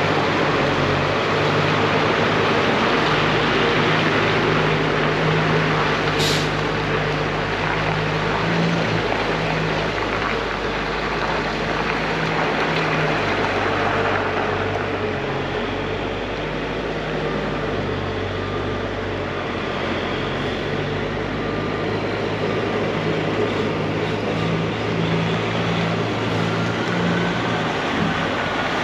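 Cat C15 diesel engine of a Peterbilt 379 dump truck running steadily, its low drone shifting in pitch now and then. A brief high hiss comes about six seconds in.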